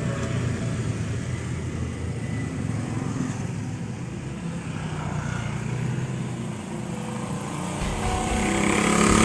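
A vehicle engine running as a steady low rumble, swelling to its loudest near the end.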